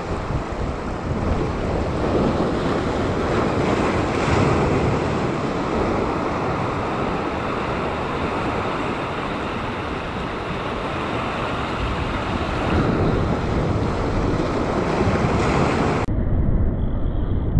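Surf washing and breaking over sea rocks, a steady rushing wash, with wind buffeting the microphone. About a second and a half before the end the sound turns abruptly muffled.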